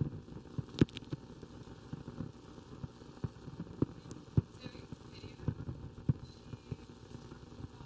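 Scattered soft knocks and bumps at irregular intervals, one sharper click about a second in, over a low background with faint voices about halfway through.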